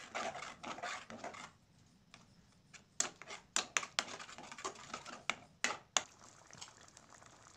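Slotted metal spatula scraping and clicking against a karahi as onion-tomato paste is stirred and fried. The irregular clicks and scrapes come in two spells, in the first second and a half and again from about three to six seconds in, then stop.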